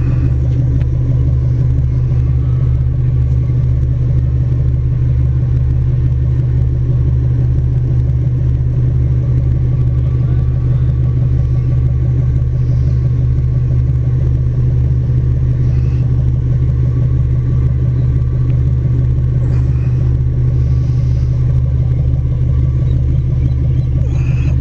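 Twin Cummins QSC 600 hp marine diesel engines idling steadily, a constant low hum with a rumbling undertone.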